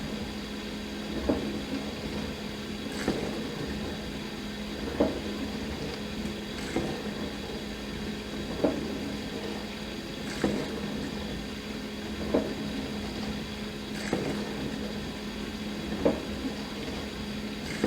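Dishwasher running mid-wash: a steady pump hum with water swishing, and a short splash or knock that comes back regularly about every two seconds.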